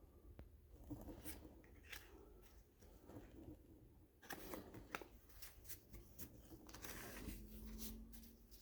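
Faint rustling and flicking of cardboard baseball cards handled one after another, with scattered soft clicks.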